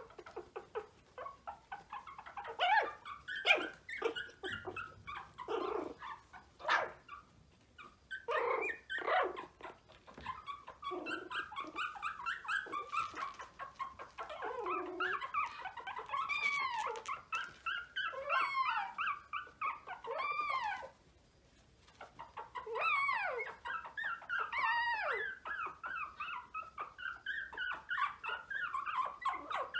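Young Maltese puppies, just learning to walk, whimpering and yipping in short, high squeaky calls that rise and fall, almost without pause. A few sharper, louder yelps come in the first seven seconds, and the calls stop briefly about two-thirds through.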